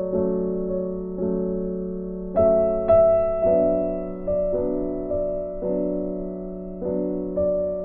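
Background instrumental music: gentle chords struck about once a second, each fading before the next.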